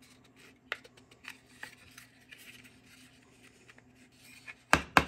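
Faint clicking and rubbing of 3D-printed plastic parts as a scroll plate is turned slowly counterclockwise over the chuck's gears. Near the end come two sharp knocks as the plastic assembly is tapped on the wooden table to seat it.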